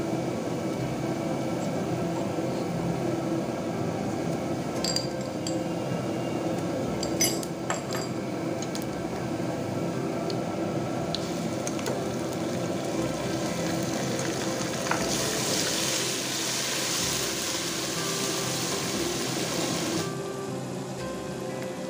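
Sliced onions frying in hot oil in a pot, sizzling steadily while a wooden spatula stirs them and taps against the pot a few times. The sizzle grows louder and hissier for about five seconds in the second half, then drops back suddenly.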